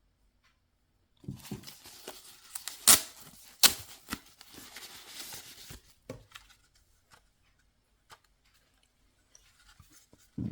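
Packaging being torn and crinkled open by hand, with two loud sharp snaps about three and four seconds in, then a few light clicks as it is handled.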